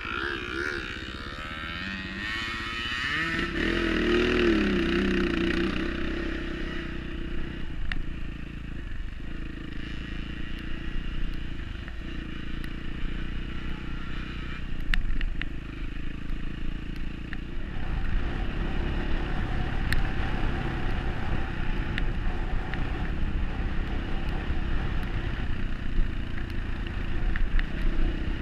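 Off-road dirt bike engine running under varying throttle while riding a rough trail, with occasional sharp clicks and clatter.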